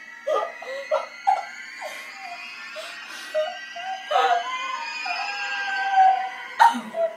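Girls shrieking and screaming in fright: a string of short yelps, then a longer held scream.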